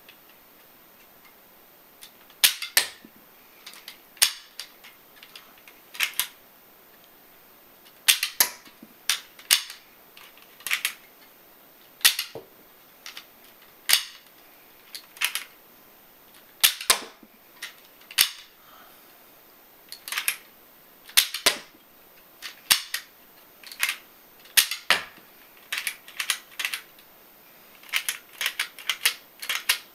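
Home-built Lego gun with a rotating barrel wheel firing: sharp plastic snaps, single shots a second or two apart, some in quick pairs, then a fast run of shots near the end as the barrel wheel spins.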